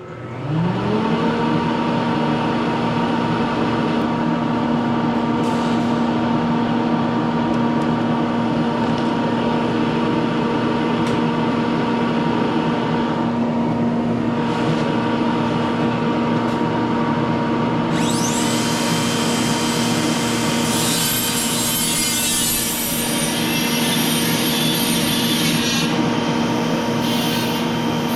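A handheld rotary power tool's electric motor spins up, rising in pitch, and runs at a steady whine. From about 18 seconds in, a hissing grind joins it as the spinning disc or wheel works against rusty expanded steel.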